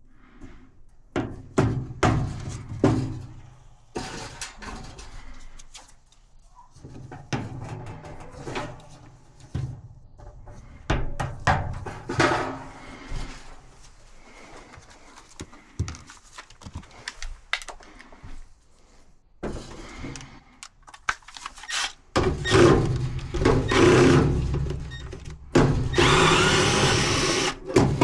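Knocks, clunks and clatter of dryer parts and tools being handled during repair work. Near the end come a few seconds of louder, steady mechanical noise.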